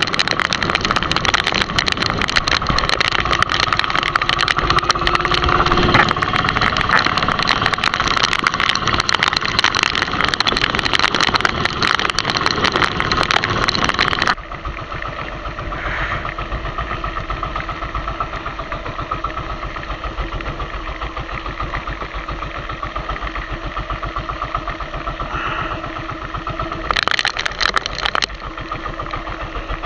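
Small fishing boat's engine running steadily under heavy rain; the rain's dense pattering drops away abruptly about halfway, leaving the engine's even, quieter running, with a short rattle of rain near the end.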